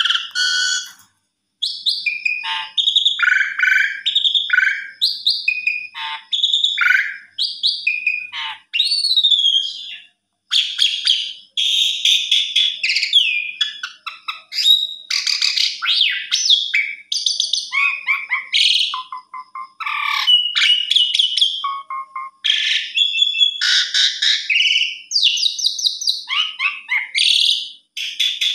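Jalak suren (Javan pied starling) singing a long, varied song of loud whistles, rapid chattering trills and sliding notes, in phrases broken by brief pauses.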